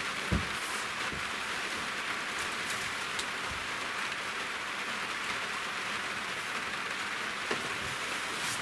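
Steady rain heard from inside, with one soft knock just after the start.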